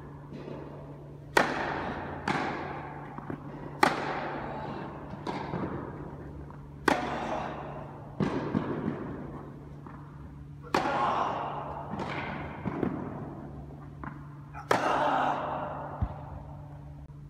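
Tennis balls struck by a racket in a rally, each hit a sharp pop that rings out with a long echo in a large indoor tennis hall. The loudest hits come about every three to four seconds, with fainter knocks between them, over a steady low hum.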